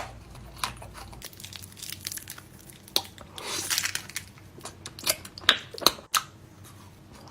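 Close-up eating of honey: scattered sharp sticky clicks and chewing, with a longer crinkling rustle about three and a half seconds in.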